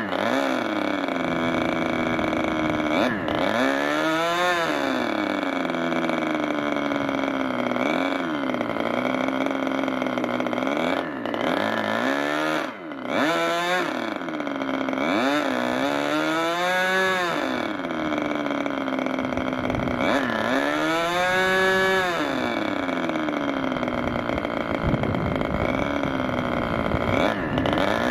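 Meteor 60 MkII two-stroke glow engine running on a test stand and driving an 11x7 propeller. Its pitch rises and falls several times as it is revved up and brought back down.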